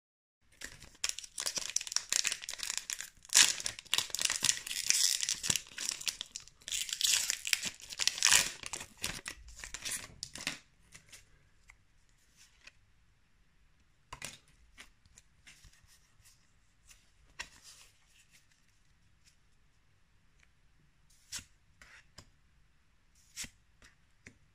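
Foil booster-pack wrapper being torn open and crinkled for about ten seconds. After that it goes much quieter, with a few short, sharp flicks and slides as trading cards are moved one behind another.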